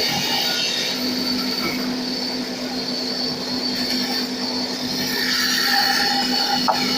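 Band saw running with a steady hum and a high-pitched whine, with a brief sharp tick near the end.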